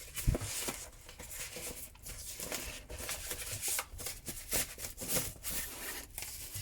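Packaging of a keyboard case being handled and opened: irregular rustling and scraping, with a sharp knock about a third of a second in.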